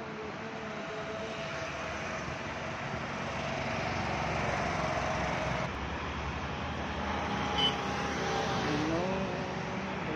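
Steady road traffic noise from passing cars, an even rushing hum that swells a little partway through, with a brief sharp sound near the end.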